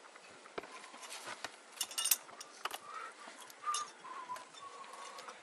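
Clicks, knocks and scrapes of a climber moving up rock: climbing gear clinking, shoes and hands on the rock and branches rustling, loudest about two seconds in. A faint wavering tone comes in during the second half.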